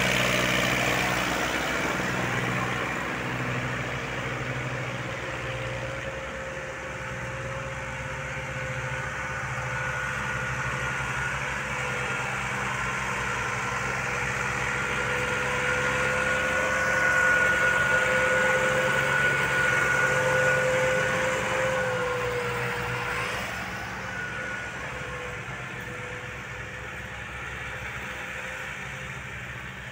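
Massey Ferguson tractor's three-cylinder diesel engine labouring as it hauls a loaded trolley up a soft sandy slope, getting louder in the middle and easing off toward the end. A thin steady whine runs through most of it.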